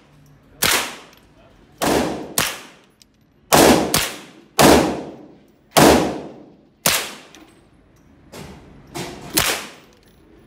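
Gunshots from an AR-15-style rifle at an indoor range: about eleven sharp shots at uneven intervals, some in quick pairs, each ringing out in the range's echo. The loudest shots come in the middle.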